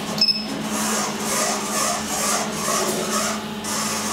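An elevator car button pressed, giving a short high beep. Then the SMW machine-room-less traction elevator's machinery runs with a steady low hum and a whirring that swells about twice a second.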